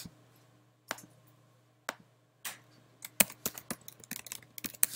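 Typing on a computer keyboard: a few spaced clicks, then a quick run of keystrokes from about three seconds in as a word is typed.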